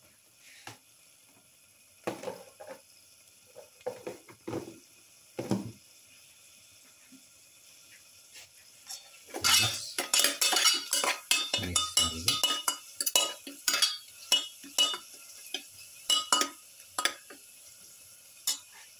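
Perforated stainless-steel spatula knocking and scraping against a metal pot while stirring spice powder into a frying onion-tomato masala. A few scattered knocks in the first six seconds, then about eight seconds of rapid scraping and clattering.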